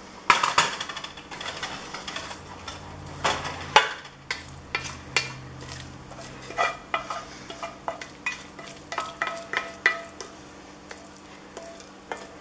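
A spoon scraping and knocking against the inside of an enamelled pot as a wet mushroom and scallion mixture is scooped out onto spaghetti in a glass baking dish. It comes as irregular scrapes and clicks, with a loud flurry just after the start and two louder knocks a little past three seconds in.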